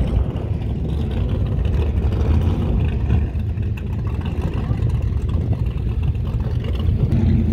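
Motorboat engine running steadily at low speed, a continuous low rumble, with wind buffeting the microphone.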